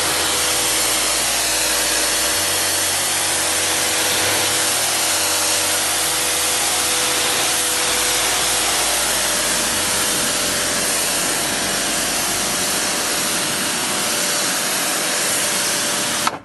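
Karcher electric pressure washer jetting water onto a sandstone patio slab: a loud, steady hiss of spray with a steady motor hum beneath it. It stops abruptly near the end.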